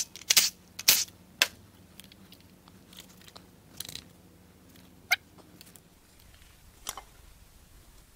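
Sharp clicks and knocks of tools and engine parts being handled while an engine is dismantled: a quick cluster of loud knocks in the first second and a half, then a few scattered lighter clicks.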